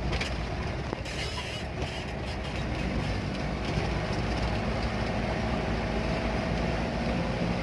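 A large engine running steadily, a continuous low mechanical drone at an even level.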